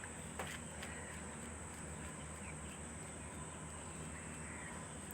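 Faint background noise: a steady low hum and a steady high-pitched whine, with a single faint click about half a second in.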